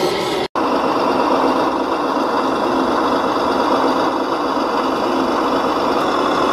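Steady mechanical hum and whir of an RC model tractor and its hydraulic tipper trailer running as the trailer bed tips its load of soil. The sound cuts out completely for a moment about half a second in.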